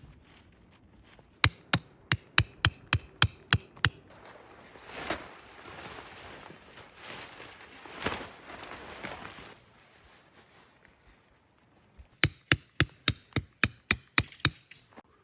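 Tent pegs being hammered into the ground: a run of about nine quick strikes at roughly four a second, a stretch of rustling, then another run of about a dozen strikes that grow fainter near the end.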